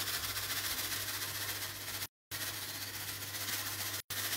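Steady low hum and hiss of room noise, broken twice by brief complete dropouts in the audio.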